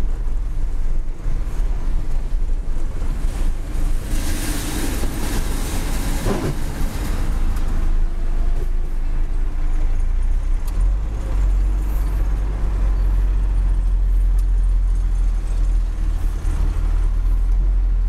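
Isuzu Giga self-loader truck's diesel engine running on the move, heard from inside the cab as a steady low rumble that grows heavier from about eleven seconds in. A burst of hiss comes about four to six seconds in.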